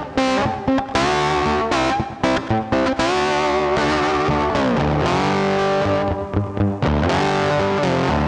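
Background music: distorted electric guitar with bent and sliding notes over bass and drums.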